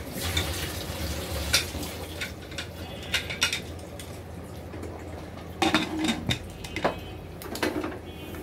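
Clinks and knocks of metal cookware, then a run of clanks from about six to eight seconds in as the aluminium lid is fitted onto the pressure cooker and locked by its handle, over a steady low hum.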